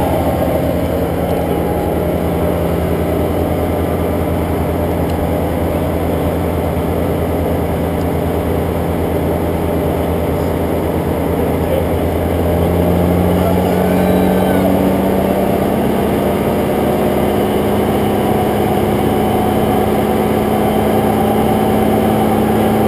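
Dodge Ram's 5.9-litre Cummins turbo-diesel running steadily on a chassis dyno, a constant drone. About halfway through it gets a little louder and its pitch steps up and then climbs slowly.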